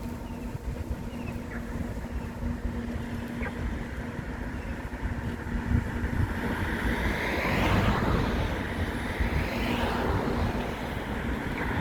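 Road traffic passing: a steady low rumble with a faint constant hum, and from about six seconds in vehicles going by one after another, each swelling and fading.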